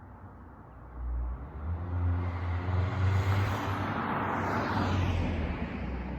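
Dodge Charger SXT with a Flowmaster Outlaw exhaust driving slowly, its low exhaust note swelling about a second in, loudest midway, then easing off near the end.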